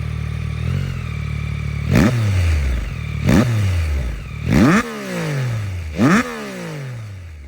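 Yamaha MT-09 SP's three-cylinder engine through a Yoshimura AT2 race exhaust with the dB killer fitted, idling and then blipped four times. Each rev rises sharply and drops straight back to idle. It is loud when revved and deeper at idle.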